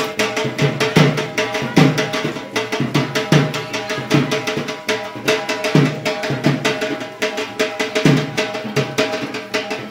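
Drum music with a steady beat: a deep drum stroke a little more often than once a second, with quicker, lighter strokes between.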